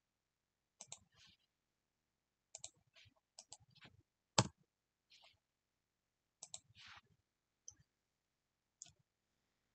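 Scattered sharp clicks of a computer mouse and keyboard, several in quick pairs, the loudest about four and a half seconds in.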